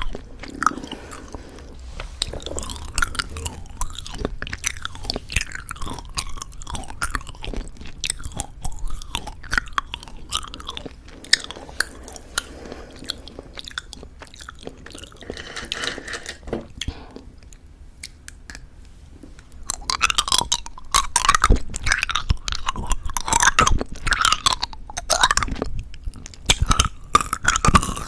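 Close-miked chewing and crunching of plum Happy Jelly chewy candies with a crunchy coated shell. Quieter through the middle, then louder, denser chewing in the last several seconds.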